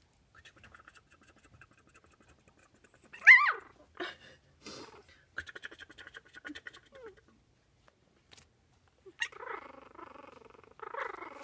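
Three-week-old puppies squeaking and whimpering, with one loud, short yelp about three seconds in and a longer whiny grumble near the end.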